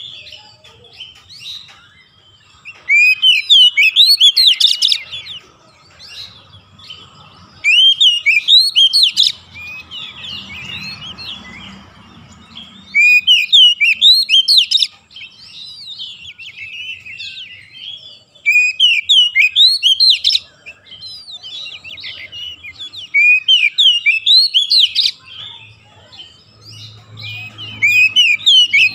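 Oriental magpie-robin singing: six loud bursts of quick whistled notes, one every four to five seconds, with quieter twittering between them.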